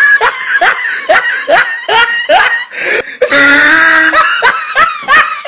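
A child's high-pitched voice shrieking in a run of short rising bursts, with a longer held note about three seconds in, then more quick bursts.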